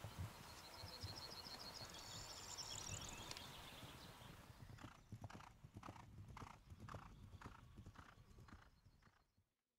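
Horse galloping on grass cross-country: a low thud as it lands over a fence, then an even beat of hoofbeats about three a second that fades away near the end. A high chirping sound is heard between one and three seconds in.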